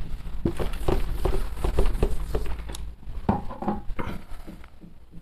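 Soft, irregular taps and scuffs of a person working at a whiteboard, over a low rumble; they fade out near the end.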